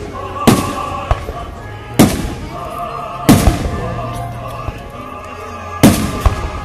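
Aerial firework shells bursting overhead: five sharp booms, spaced one to two and a half seconds apart, the last two close together near the end.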